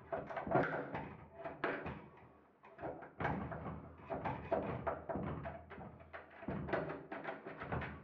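Thin metal rod scraping and clicking inside a drilled-out euro lock cylinder, in a string of irregular strokes, as it is worked against the lock's inner mechanism to open it.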